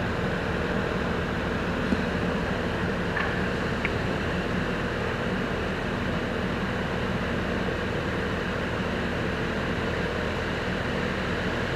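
Steady rumble of city traffic and construction-site machinery, with a low steady hum and a few faint ticks between two and four seconds in.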